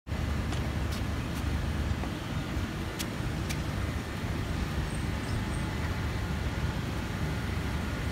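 Steady low outdoor rumble, with a few faint clicks in the first few seconds and three brief high chirps about five seconds in.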